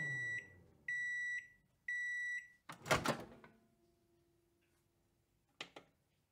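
Microwave oven finishing: its running hum dies away, then three high beeps about a second apart signal the end of cooking. About three seconds in, the door opens with a loud clunk, followed by a faint low tone and a couple of small clicks near the end.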